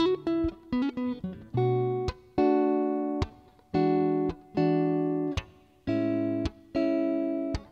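Acoustic guitar played solo. It opens with a quick run of picked single notes, then plays a series of strummed chords, each ringing briefly and damped short before the next.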